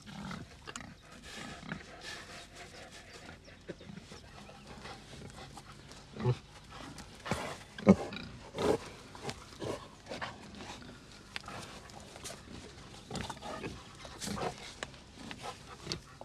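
Domestic pigs grunting in short, irregular bursts as a boar mounts a sow, the grunts coming thicker and louder from about six seconds in.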